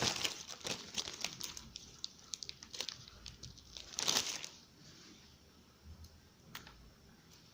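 Packaging being handled and crinkling, dense small crackles at first that thin out, with one louder rustle about four seconds in.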